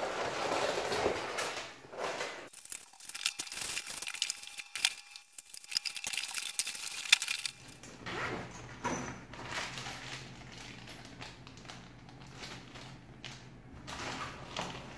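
A box cutter slicing packing tape on a cardboard box, followed by cardboard and packing material crinkling and crackling for several seconds. Then, over a low hum, softer rustling of a nylon gig bag and a crinkling plastic bag as it is pulled from the bag's pocket.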